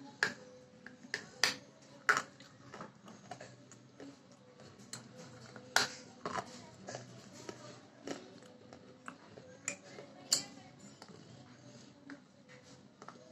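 Close-miked eating sounds: irregular wet mouth clicks, smacks and crunches of someone chewing food, with a few sharper, louder clicks spaced a few seconds apart.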